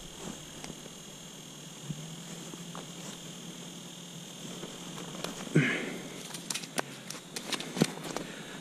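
Gloved hands handling a fish and an ice-fishing rod: a few scattered clicks and knocks, thickest in the last three seconds, over a faint steady high-pitched whine.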